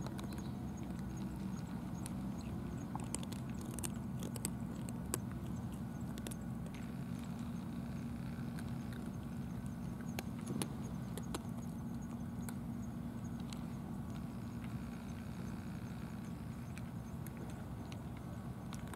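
A steady low mechanical hum, with scattered faint clicks as cats eat from small dishes.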